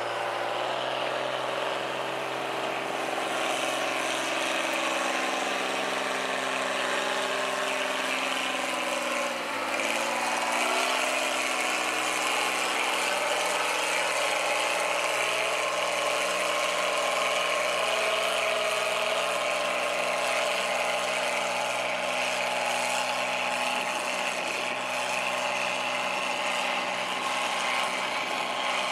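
An engine running at a steady speed after spinning up. Its pitch dips briefly and recovers about ten seconds in.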